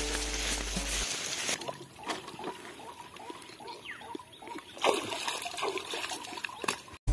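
Water splashing and trickling as a man scoops shallow channel water by hand over his feet and legs, in uneven splashes with a louder splash about five seconds in.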